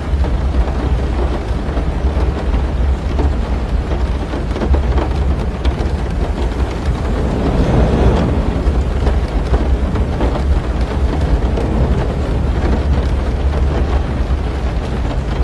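Heavy rain falling on a car's roof and windshield, heard from inside the cabin, over a deep steady rumble. A low rumble of thunder swells and fades about eight seconds in.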